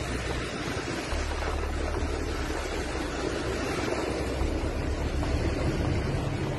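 Steady rushing noise of a large wildfire burning in the wind, with wind buffeting the microphone.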